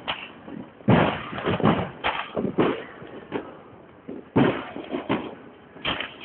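Aerial fireworks bursting: an irregular series of about ten loud bangs, each trailing off in an echo, the loudest about a second in and just after four seconds.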